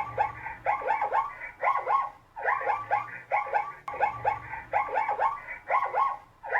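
Zebra barking: repeated high yelps in quick runs of three or four, one run about every second, with a brief pause a little after two seconds in.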